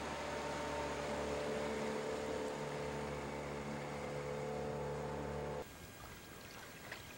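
Outboard motor of a small open boat running steadily as the boat pulls away, an even hum with several fixed tones. It cuts off suddenly about five and a half seconds in, leaving only a faint hiss.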